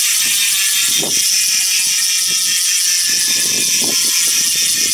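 Evanlite carbon wheel's rear freehub freewheeling: a loud, steady, high-pitched ratchet buzz as the wheel spins without pedalling, which sounds quite good.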